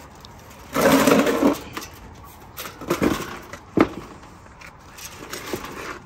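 Old central-air condenser unit being twisted and shoved off its pad: a loud scraping grind about a second in, then several knocks and rattles from the sheet-metal cabinet as it shifts.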